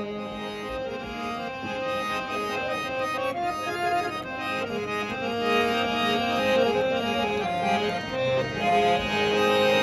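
Harmonium playing an instrumental melody with held, changing notes, with no singing over it.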